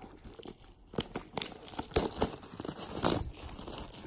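Clear plastic wrapping on a trading card box crinkling and tearing as it is pulled off by hand, in irregular crackles with a louder burst about three seconds in.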